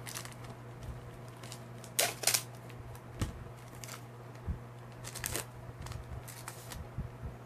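Trading cards and a foil pack wrapper being handled close to the microphone: a few scattered rustles and crinkles, the loudest about two seconds in, over a steady low hum.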